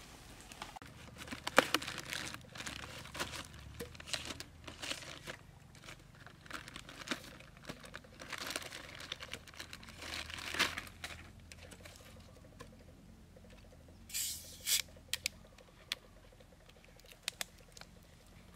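Plastic bag crinkling and rustling as plastic soda bottles are pulled out and handled, with scattered clicks and knocks. Two short hisses come about three-quarters of the way through.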